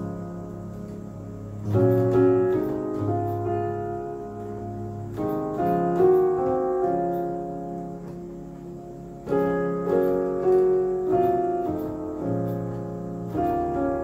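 Keyboard playing a piano sound: slow, sustained chords with a bass note under each, left to ring, with new chords struck every few seconds and a few single melody notes on top.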